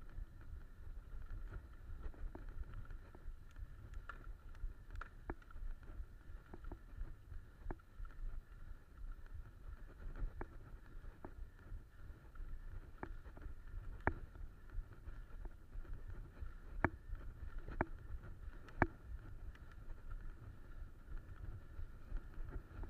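Mountain bike rolling along a dirt trail: a steady low rumble from the tyres and the rushing air, with frequent sharp clicks and rattles from the bike as it goes over bumps, a few louder knocks in the second half.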